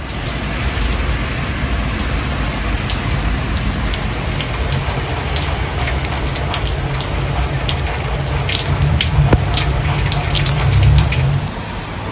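Heavy rain pouring, with many individual drops pattering sharply on a surface close by over a steady low rumble.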